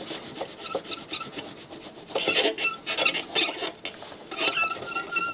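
Cotton swab scrubbing crusty residue off a circuit board between the components, a fast run of rasping back-and-forth strokes with short squeaks, louder near the end.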